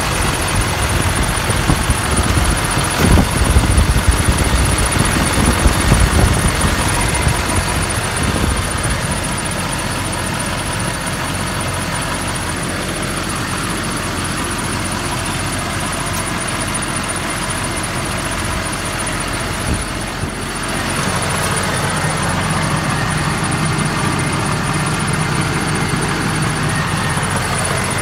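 Engine of a 2005 GMC C5500 medium-duty truck idling steadily, heard close up in the open engine bay, running smoothly. Uneven low rumbling swells between about three and seven seconds in, and a steady low hum joins the idle about three-quarters of the way through.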